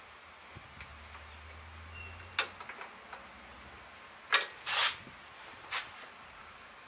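A few scattered metallic clicks and a short scrape of a wrench working the muffler bolts at the cylinder head of a 1969 Honda CT70. The loudest clicks come about four and a half seconds in, over a faint low hum that stops about two and a half seconds in.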